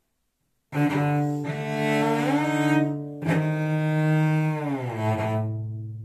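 Solo cello bowed in two long phrases, starting just under a second in with a short break around three seconds; the pitch slides upward in the first phrase and slides down in the second onto a low note that rings and fades. It is the cello passage that stands for the frog.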